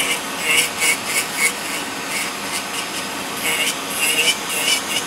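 Electric podiatry nail drill grinding down a thick, fungus-infected toenail: a steady motor hum with a rougher rasp in short repeated strokes each time the burr bites into the nail.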